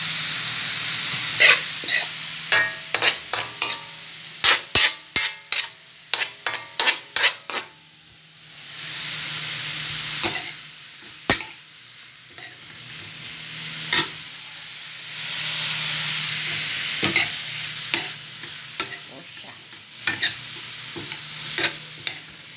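Sliced white onion rings sizzling as they sauté in a metal pan, with a metal spoon clinking and scraping against the pan as they are stirred. Quick runs of clinks come in the first several seconds, then the sizzle swells twice between scattered clinks.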